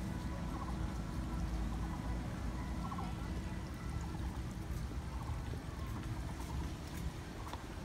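Water trickling and pouring, under a steady low rumble.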